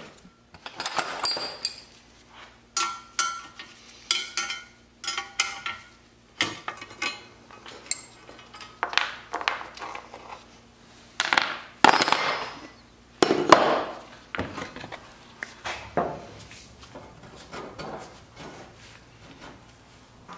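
Iron wagon-tongue straps and plates being handled, set down and fitted: a string of metal clanks, clinks and scrapes, some ringing briefly, with the loudest scrapes a little past the middle.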